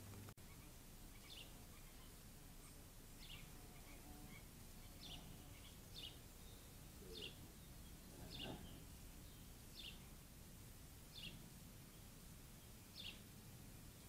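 Faint, short bird chirps, repeated about every one to two seconds, against near silence.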